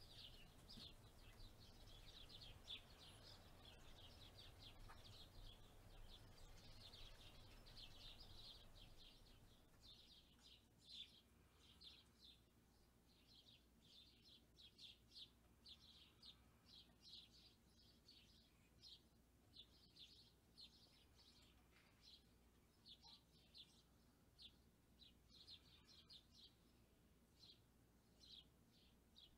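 Faint outdoor birdsong: short high chirps repeated again and again. Soft wind noise under them eases off about a third of the way in.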